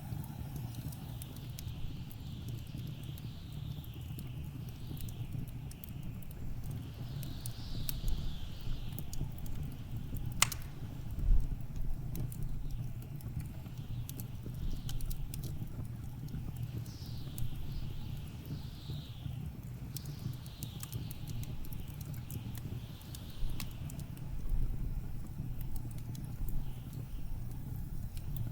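Wood fire crackling and popping in a fireplace over a low steady rumble, with blizzard wind gusting in rising and falling whooshes every second or two.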